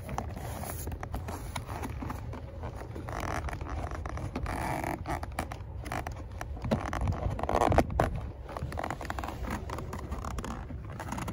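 Stirrup leather being worked through the slot of a western saddle: irregular scraping and rubbing of leather on leather, with small handling clicks, over a steady low rumble. The scraping is loudest briefly about eight seconds in.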